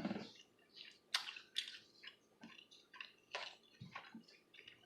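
Close-miked chewing of barbecue pork ribs: irregular wet mouth clicks and smacks, about one every half second.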